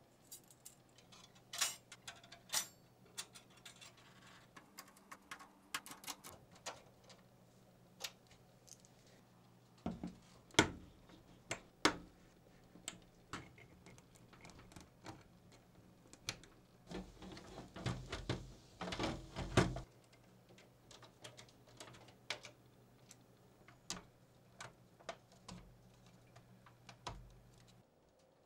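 Close-up clicks, taps and light metallic rattles of hands assembling a PC: thin perforated metal slot covers handled and cable connectors pushed into a modular power supply. There is a denser burst of clatter a little past the middle.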